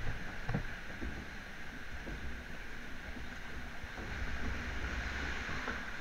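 Log flume boat floating along its water channel: a steady rush of flowing water around the hull, with a low rumble underneath.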